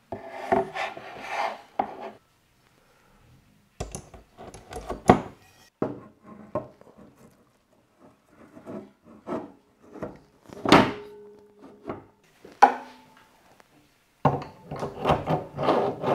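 CNC kit parts (MDF spoilboard panels and the aluminium frame) being handled during assembly on a wooden workbench: scattered knocks, slides and scrapes of wood and metal against wood, with short quiet gaps between them.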